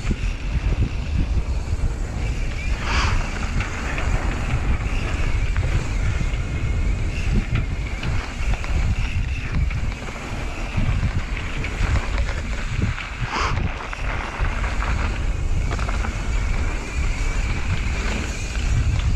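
Wind buffeting the GoPro Hero 8's microphone as a mountain bike rides fast down a dirt singletrack, with tyre and trail rumble. Two short hissing sweeps stand out, about 3 and 13 seconds in.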